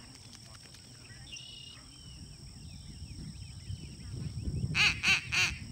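A duck call blown in three quick, loud quacks near the end, the kind of hail that signals the mark before the bird is thrown and shot at a retriever hunt test.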